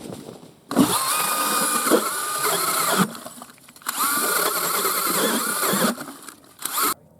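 Power ice auger boring a hole through pond ice, running in two spells of about two seconds each with a short pause between, its motor pitch rising as it spins up and then holding steady.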